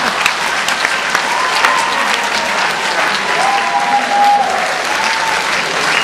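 Theatre audience applauding steadily, with a few faint voices calling out in the crowd.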